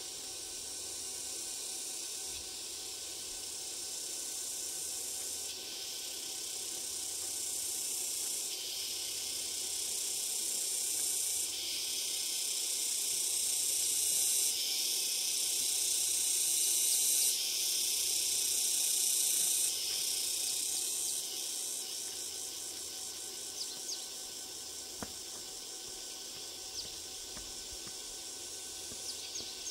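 A chorus of insects, such as cicadas, shrilling in the trees. It is a dense high hiss that swells and drops in steps, loudest midway.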